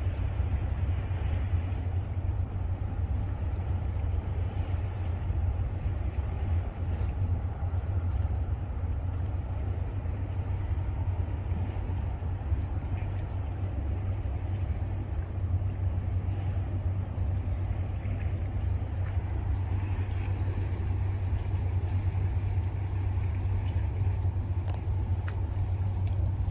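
Steady low rumble of wind buffeting the microphone, with a fainter wash of noise above it.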